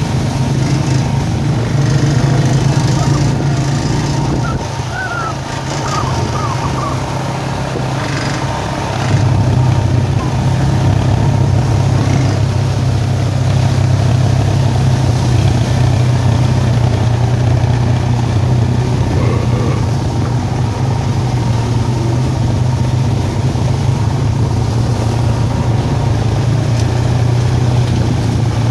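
ATV engine running steadily while riding a trail; it eases off about five seconds in and picks up again, louder, about nine seconds in.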